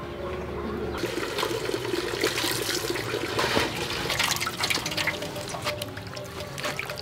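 Water running from a tap into a metal basin, and hands splashing and rubbing small sea fish in a basin of water, starting about a second in. Quiet background music runs underneath.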